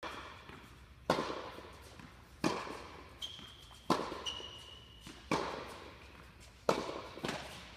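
Tennis racket striking a ball five times, about every second and a half, each crack ringing out in the reverberant indoor court hall.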